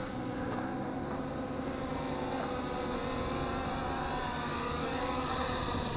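MJX Bugs 5W quadcopter's brushless motors and propellers buzzing steadily as it hovers low and comes down to land.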